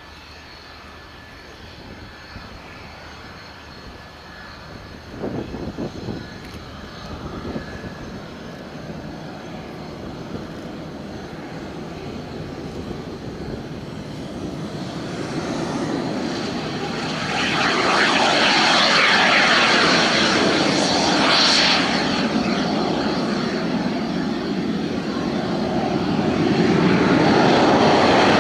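Saab JAS-39C Gripen fighter's single Volvo RM12 turbofan running as the jet taxis along the runway. The rush grows louder as it nears, steps up sharply about two-thirds of the way in, and is loudest near the end.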